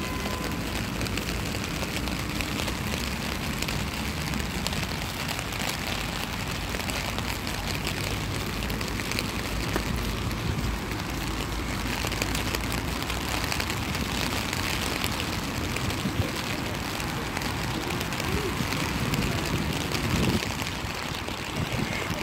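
Steady rain falling on an umbrella and the wet street, heard as a dense patter of fine drops over a low, steady rumble.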